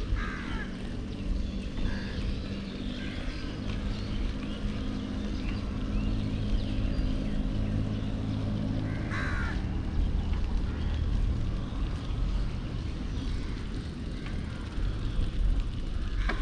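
Steady low rumble of wind on the microphone and tyres rolling on a wet road while riding a bicycle, with birds chirping now and then.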